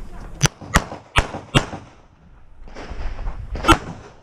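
Pistol shots from a CZ Shadow 2: four rapid shots about a third of a second apart, a pause of about two seconds, then one more shot, each sharp crack followed by a short echo. They come right after a shot-timer start beep, so this is the opening of a timed competition stage.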